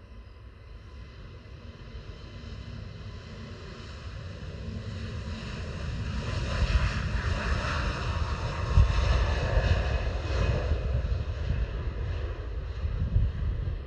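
Airbus A321 airliner's jet engines rumbling with a broad roar as it rolls past on the runway, growing steadily louder to a peak about halfway through and staying loud as it moves away.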